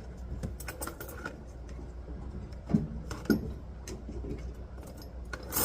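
Scattered light clicks and knocks of things being handled, over a steady low hum, with two firmer knocks around the middle.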